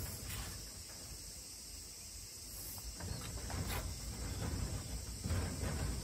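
Masking tape pulled off the roll and pressed along the edge of a window pane, making a few short rasps, over a steady chirring of insects.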